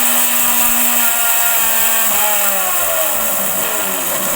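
Atomberg Zenova BLDC mixer grinder running at high speed, whining as it grinds dry chillies, coriander seeds and lentils into idli podi. Over the second half its pitch falls steadily as the motor slows down.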